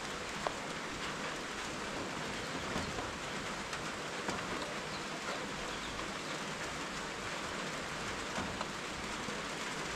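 Rain falling steadily, with a louder single drop striking now and then.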